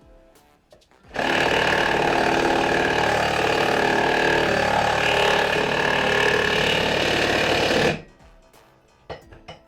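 Cordless impact driver hammering a half-inch lag bolt into the wall, starting about a second in, running steadily for about seven seconds, then stopping suddenly.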